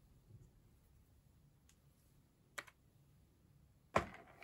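A few small sharp clicks, one faint and one clearer, then a louder knock near the end: small pen parts and a clear plastic parts box being handled.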